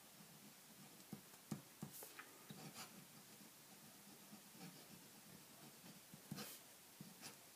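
Visionnaire fountain pen nib scratching faintly across paper in short strokes as cursive letters are written. The nib gives a little feedback on the paper, not buttery smooth.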